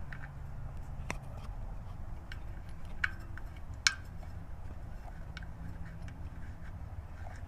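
A few light, sharp clinks a second or so apart, the loudest about four seconds in, over a low steady rumble.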